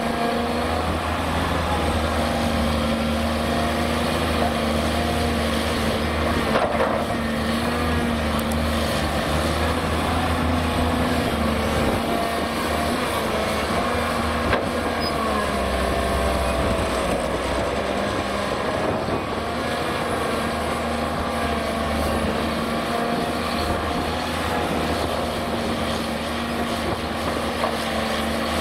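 Cat 330D crawler excavator's C9 diesel engine running under hydraulic load through a dig, swing and dump cycle, its note dipping and rising as it works. A single sharp knock about seven seconds in.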